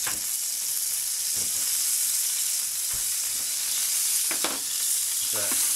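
Minced garlic sizzling in hot oil in a nonstick frying pan: a steady frying hiss that grows slightly louder, with a couple of brief ticks.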